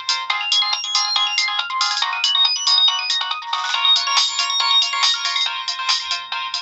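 Nokia 7650 stock ringtone playing from the phone's small speaker: a fast electronic melody of short, clipped notes, several sounding at once, all high and thin with no bass.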